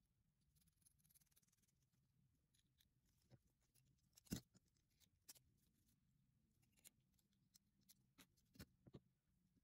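Faint, scattered clicks and taps of pliers and small metal parts on a tiny all-metal RC car chassis, the sharpest click about four seconds in and a few more near the end, over a low steady hum.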